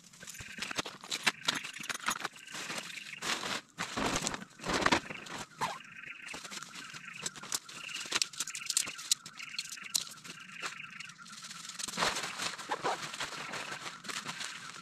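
Tent nylon rustling and dry leaf litter crackling as a dome tent is taken down and handled on the forest floor, in irregular bursts with the loudest rustle about four to five seconds in.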